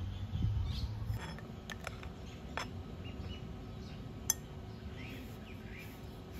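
Small metal clinks of nose pliers working the guide pins out of a scooter's rear CVT pulley sleeve, a few light clicks and one sharp clink about four seconds in. Birds chirp near the end.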